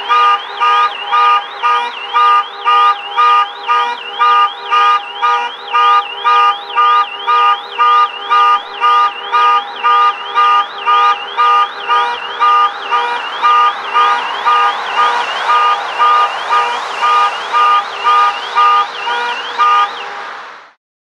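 Car alarm beeping on and off in a steady repeating cycle, about two beeps a second, each beep carrying a quick rising chirp, over street background noise. It stops shortly before the end.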